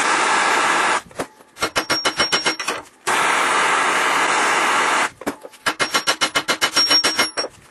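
Propane torch flame hissing steadily, twice broken off by a quick run of hammer blows on a bench vise's anvil face. The blows are drawing out red-hot spring steel into a longer flat section, and some carry a faint high ring.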